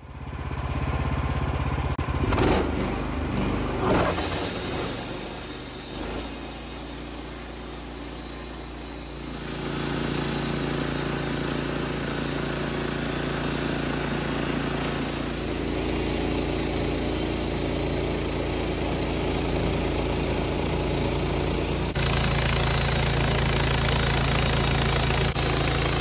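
Wood-Mizer LT15 band sawmill running as its blade makes the opening cut through a large alder log, with a couple of knocks in the first few seconds. The sound gets louder about ten seconds in and again near the end.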